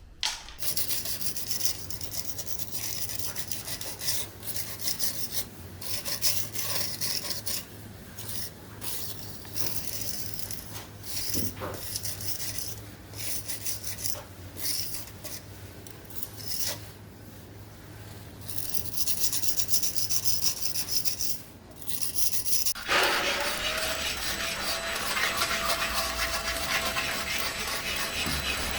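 Uneven scrubbing or rubbing strokes by hand, in short runs with pauses. About 23 seconds in, an electric motor switches on suddenly and runs steadily with a constant whine over a rushing noise.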